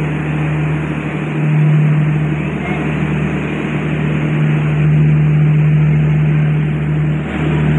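Passenger train pulling out of the station: a steady engine drone over continuous rumbling noise.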